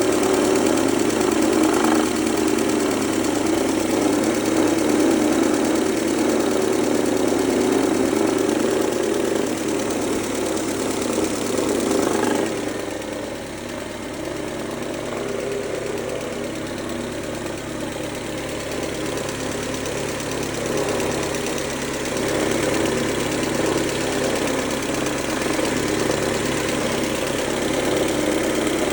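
Mercedes-Benz A140 (W168) 1.4-litre four-cylinder petrol engine idling steadily, heard close with the engine bay open. It carries a noise from the front of the engine that the owner suspects comes from the timing chain or chain tensioner. It gets quieter for a while from about halfway in.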